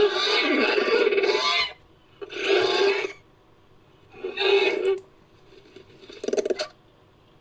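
Sound-effect dinosaur calls built from animal recordings: four calls, the first long at about a second and a half, then three shorter ones a second or two apart.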